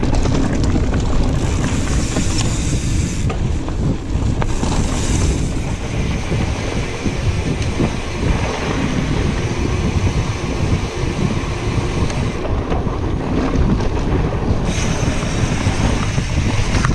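Wind noise buffeting the microphone of a camera mounted on a moving mountain bike, a steady low rumble with the rattle of the bike riding over a dirt trail.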